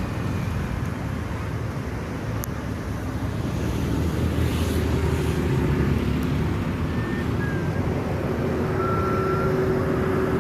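Bus engine running with road traffic noise, a steady low rumble that grows a little louder about four seconds in.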